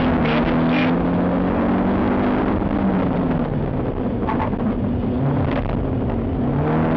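A BMW 318is four-cylinder rally engine heard from inside the cabin, under load on a stage, its pitch falling and rising again as the driver lifts and accelerates, over steady road and tyre noise.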